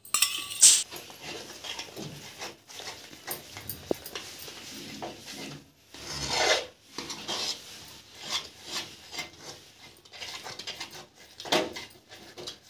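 Metal spoon scraping and stirring thick milk-powder peda mixture around a metal kadhai, an irregular run of rasping strokes against the pan. Some strokes are louder, about half a second in, around the middle and near the end. The mixture has cooked down thick enough to begin leaving the sides of the pan.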